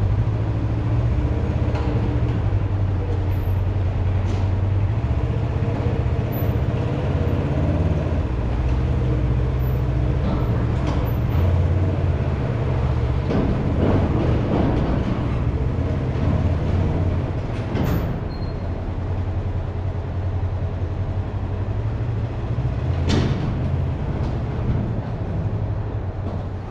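A piece of farm equipment's engine running steadily with a deep rumble, with a few clanks and knocks scattered through it as the gravity wagon is moved.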